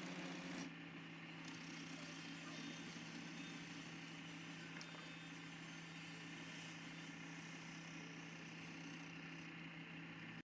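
Wood lathe running with a steady low hum.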